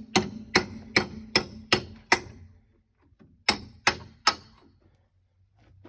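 Hammer blows driving nails into framing lumber: a quick run of six strikes about two and a half a second, a pause, then three more strikes.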